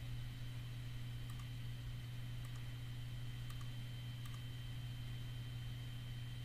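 Faint computer mouse clicks, a handful spread over several seconds, over a steady low electrical hum.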